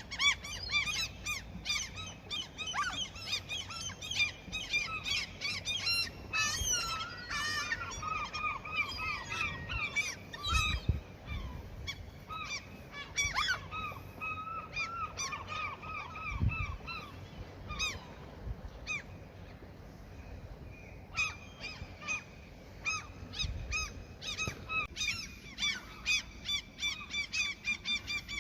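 Gulls calling over and over in rapid series of short, harsh notes, several birds overlapping, with a short lull before the calling picks up again. A few brief low thuds come in between.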